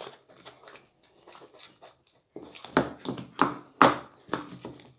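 Homemade borax slime being squeezed and kneaded by hand: a run of short, wet, sticky clicks and squelches, faint at first and louder from about halfway through.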